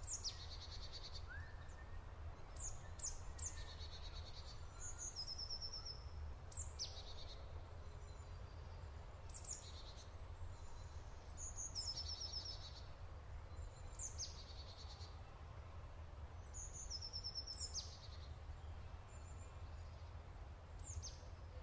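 Songbirds singing: high, sharp downward-sweeping chirps and short trills, the same phrase coming back every several seconds, over a faint low rumble.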